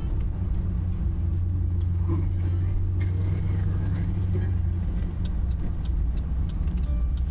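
Pontiac G8 driving slowly through town, heard from inside the cabin as a steady low engine and road rumble that settles lower after about five seconds.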